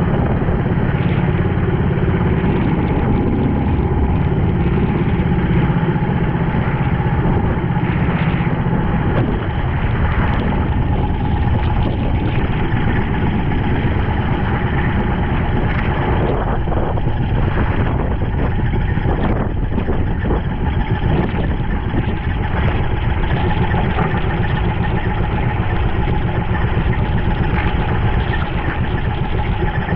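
Engine of a small motorized outrigger boat running steadily under way, with water splashing off the hull and outriggers. The low engine hum shifts slightly about nine seconds in.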